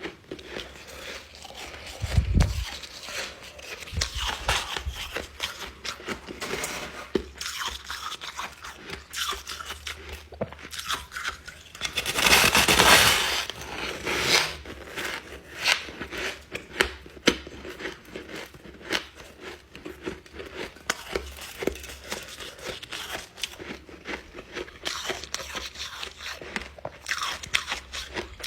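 Ice being bitten and chewed close to the microphone: dense crunching and cracking. About halfway through there is one louder, longer crunch.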